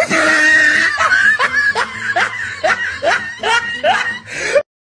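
Someone laughing in a long run of short, rising 'heh' sounds, about two or three a second, which cuts off abruptly near the end.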